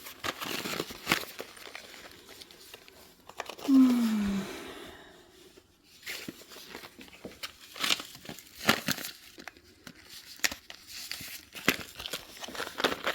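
Paper and packaging crumpling and tearing, with scattered rustles and clicks, as kindling is laid in a small wood stove. About four seconds in there is a brief falling hum.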